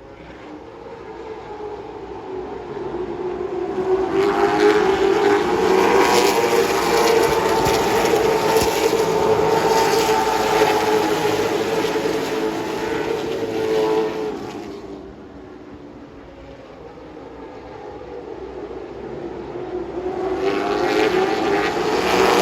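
Late model stock car's V8 engine under racing power. It builds up over the first few seconds, runs loud and steady for about ten seconds, eases off to a lower, quieter drone, and then builds up again near the end, following the throttle around the laps.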